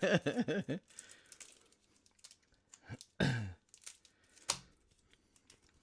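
A man's speech trails off, then faint crinkling, rustling and small clicks of hands handling things close to the microphone. A short falling voice sound comes about three seconds in, and a sharper crinkle or knock at about four and a half seconds.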